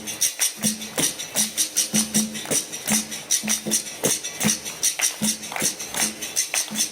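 Capoeira music: a pandeiro's jingles are struck in a quick, steady rhythm over a short low note that repeats about twice a second.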